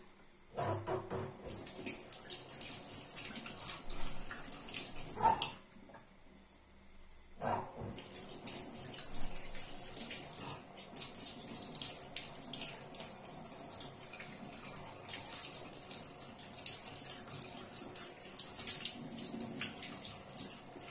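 Kitchen tap running into a stainless steel sink as mushrooms are rinsed by hand under the stream. The water stops about five seconds in and starts again about two seconds later.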